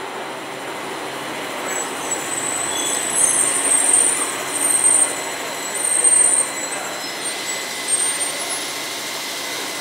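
Kinki Sharyo light rail car rolling into an underground station and slowing, a steady rumble with high-pitched squeals coming and going as it brakes.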